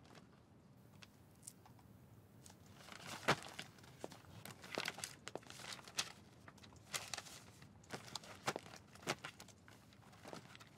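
Sheets of paper and folders being handled and shuffled at a desk: faint rustling with light knocks and taps, starting about two and a half seconds in, the sharpest knock soon after.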